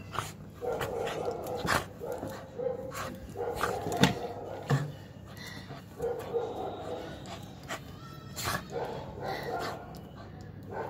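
Puppy play-growling in repeated short bouts, with barks and yips, while it snaps and mouths at a person's hand. Sharp clicks come between the bouts.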